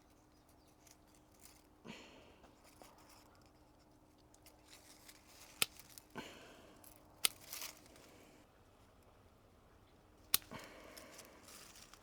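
Pruning shears snipping stems off a plant, three sharp snips a couple of seconds apart, with rustling of leaves and branches as the cuttings are taken.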